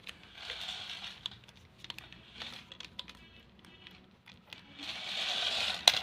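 Mirana Warrior remote-control stunt car driven on a tiled floor: its small electric motors and plastic gears whirring in spurts while the wheels rattle over the tiles, with scattered sharp clicks. The longest spells come at the start and near the end.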